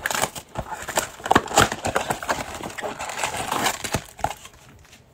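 A cardboard trading-card blaster box being opened by hand and its foil-wrapped card packs pulled out: an irregular run of cardboard scrapes, rustles and small knocks that fades out near the end.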